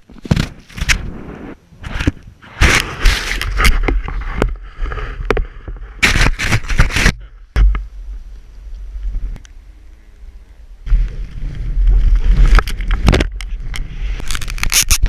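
Skis or a snowboard scraping and chattering over hard snow in loud, uneven bursts, with a low rumble of wind on the microphone. The sound goes quieter for a few seconds midway, then picks up again.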